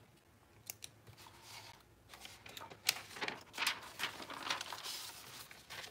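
Papers and small objects being handled on a desk: irregular rustles, clicks and taps, sparse at first and busier from about two seconds in.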